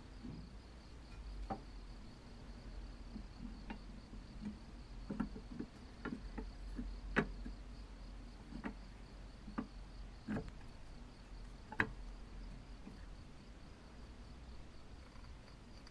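Painted cast-iron parts of a mechanical coin bank clicking and knocking lightly against each other as they are fitted together by hand: about a dozen sharp, irregularly spaced clicks, stopping about twelve seconds in. A steady low hum and a faint high whine run underneath.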